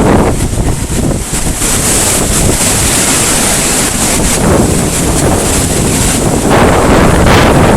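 Storm-force wind blowing hard and buffeting the microphone, a loud rushing noise that surges in gusts every second or two.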